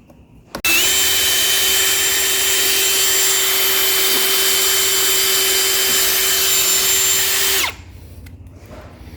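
Power drill running at a steady speed for about seven seconds, boring a small hole into the wooden door jamb beside a stuck screw head. It spins up a little under a second in and stops shortly before the end.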